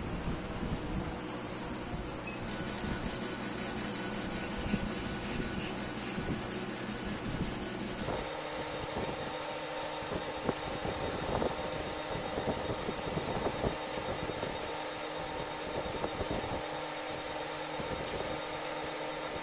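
Laser cutter running as it cuts acrylic: a steady mechanical hum with fan noise and a faint motor whir from the moving head. The sound changes abruptly about eight seconds in.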